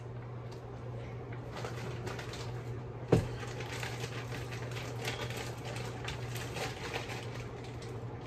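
Plastic bag crinkling and rustling as ears of corn on the cob are pulled out of it, with one sharp thud about three seconds in, the loudest sound. A steady low hum runs underneath.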